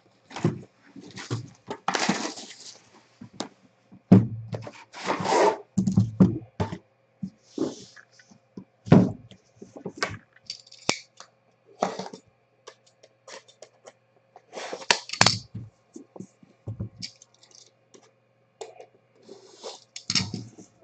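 Irregular rustling, scraping and light knocks from unpacking a trading-card box: a white cardboard outer box is slid off an aluminium briefcase-style card case, which is then handled, with a few sharp clicks and taps of the metal case.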